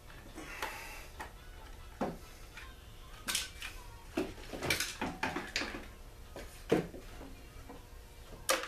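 Irregular clicks, knocks and rattles of hands working the plastic side panel and housing of a small two-stroke generator loose, with a few sharper knocks in the later part.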